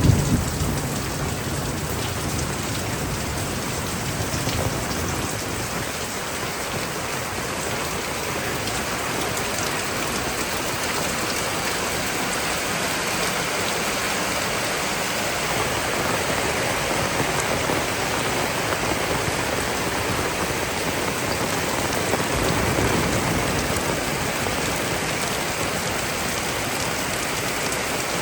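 Heavy rain pouring down steadily in a rainstorm, with the tail of a thunderclap rumbling away in the first second.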